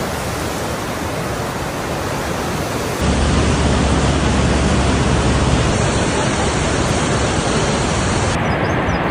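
Muddy floodwater rushing through the streets as a fast torrent: a loud, steady rushing noise. About three seconds in it becomes louder and deeper.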